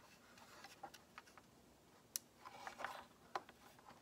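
Faint scattered clicks and light rustling of a small circuit board and a replacement electrolytic capacitor being handled, its leads worked into the board's holes; a sharp click about two seconds in and another about three and a half seconds in.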